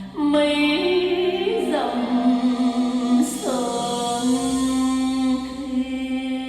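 Music: a slow song with a female voice holding long notes, sliding into each new note, over a steady low accompaniment.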